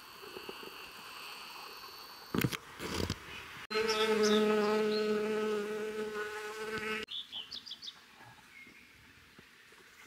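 A bee buzzing close by in a steady, even hum for about three seconds, starting about four seconds in and cutting off suddenly. A couple of knocks come just before it, and a few short bird chirps follow.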